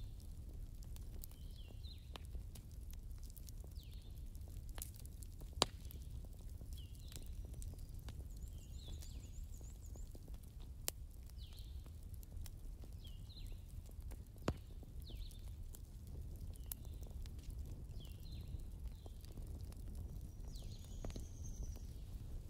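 Faint background ambience: a steady low rumble with short high chirps about once a second, a quick high trill and a few sharp clicks.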